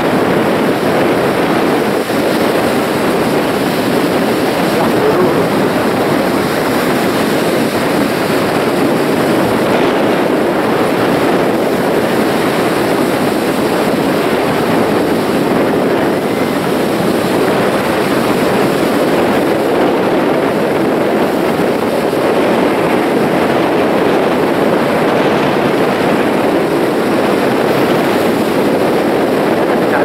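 Sea surf breaking and washing in, a steady rushing noise with no distinct single crashes.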